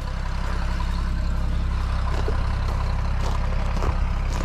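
An old loader tractor's engine idling steadily as it warms up, with a few light knocks over the top.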